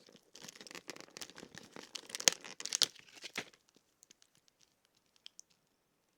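Paper or plastic packaging being torn open and crinkled by hand for about three seconds, with a few sharp rips, then only a few faint ticks of handling.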